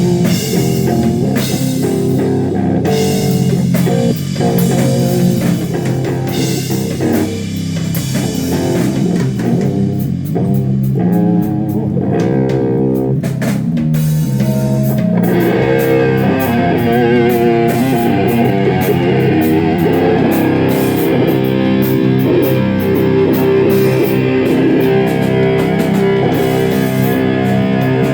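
Electric guitar and bass guitar playing sludge-metal riffs at a sound check, with drums. The sound gets fuller and brighter about halfway through.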